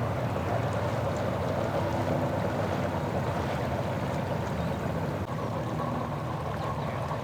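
An engine running steadily at low revs, with a low hum and an even, continuous level.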